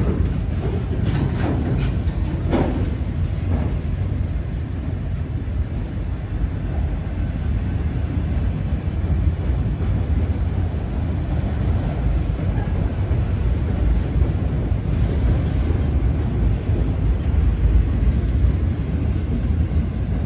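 Freight train of autorack cars rolling past: a steady low rumble of steel wheels on rail, with a few sharp clacks in the first few seconds.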